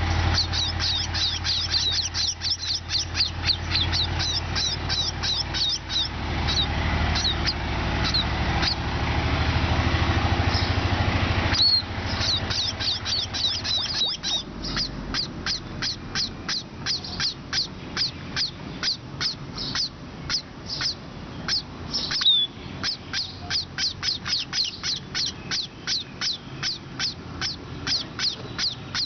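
A flock of sparrows chirping, many quick high chirps a second without pause. A low engine-like rumble runs under them at first and cuts off about twelve seconds in.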